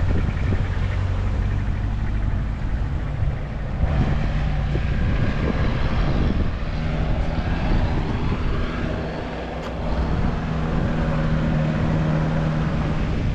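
Motor vehicle engines running on a hairpin mountain road, a steady low hum whose pitch steps up about four seconds in, over a noisy rushing background.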